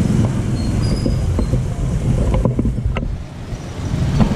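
Steady low mechanical rumble, like a machine running, with several light clicks and knocks over it.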